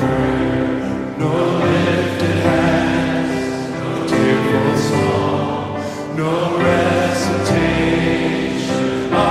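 Live recording of a large congregation singing a hymn with musical accompaniment.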